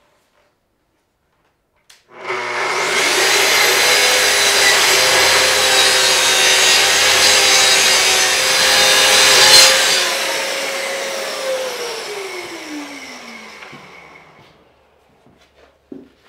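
Festool plunge-cut track saw starting about two seconds in and cutting along its guide rail through two stacked sheets of half-inch maple plywood. After the cut, about ten seconds in, the motor spins down with a steadily falling whine that fades out, followed by a few light knocks.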